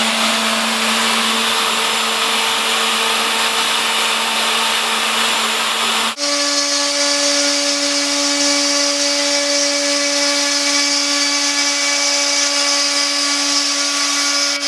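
Homebuilt CNC machine running while cutting a logo: a steady motor whine over a cutting hiss. About six seconds in, the sound breaks off for an instant and resumes at a slightly higher, steady pitch.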